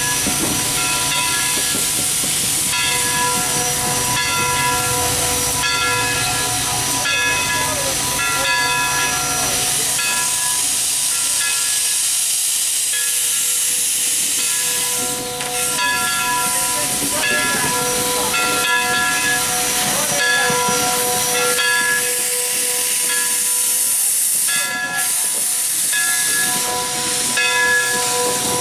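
CNJ 113, a steam 0-6-0 switcher, moving slowly in reverse with steam hissing steadily from its open cylinder cocks. A pitched whine comes and goes in short pulses over the hiss.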